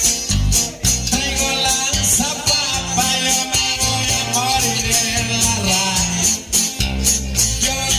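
Latin band music with a steady beat, strong bass and shaker-like percussion, with some singing.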